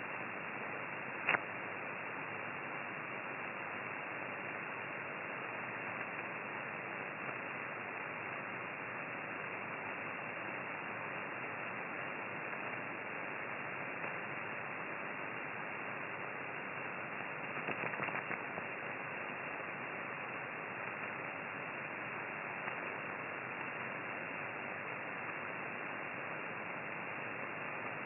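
Amateur radio receiver on the 50 MHz band giving out a steady, narrow hiss of band noise, the noise problem being examined. A sharp click comes a little over a second in, and a short run of crackles about two-thirds of the way through.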